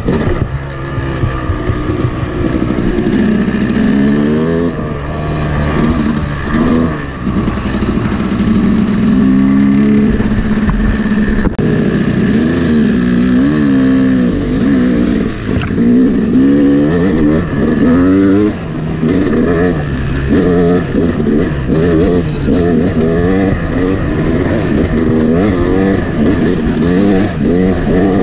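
Yamaha 250 two-stroke dirt bike engine being ridden hard, revving up and falling off again and again as the throttle is worked and gears change. A single sharp click comes about eleven seconds in.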